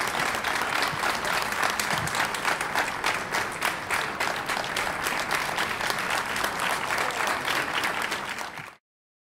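Audience applauding, a dense patter of many clapping hands that cuts off suddenly near the end.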